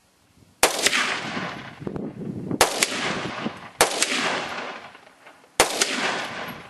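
Four rifle shots, about one to two seconds apart, each followed by a long echo that rolls away.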